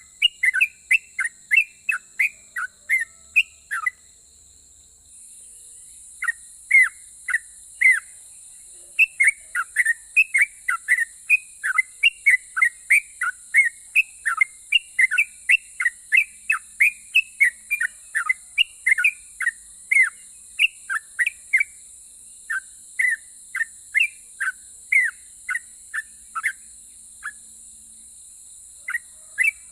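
Yellow-vented bulbul (trucukan) singing in long runs of quick, short falling whistled notes, breaking off about four seconds in and briefly near the end. A faint steady hiss lies underneath.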